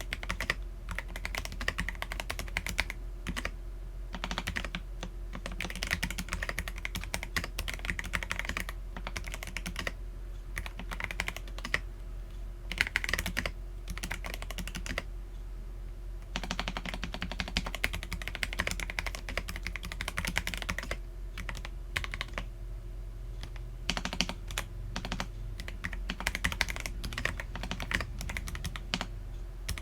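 Continuous typing on an Akko PC75B mechanical keyboard with lubed Akko Jelly Black linear switches and PBT Cherry-profile keycaps: a fast, irregular stream of keystrokes. There is a brief pause about halfway through.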